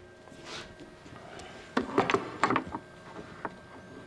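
Clamps being fitted and tightened onto a wooden board: a quick cluster of knocks and clicks about two seconds in, then a few lighter clicks.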